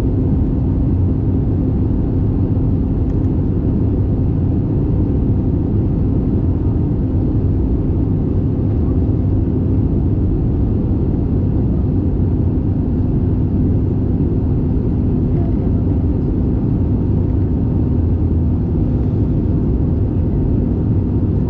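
Steady cabin noise of an Airbus A320neo in flight during descent: an even, low rumble of airflow and the CFM LEAP-1A engines, with a faint steady hum over it.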